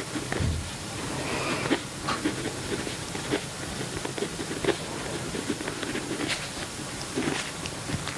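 Pen scratching on journal paper in short, irregular strokes over a steady hiss.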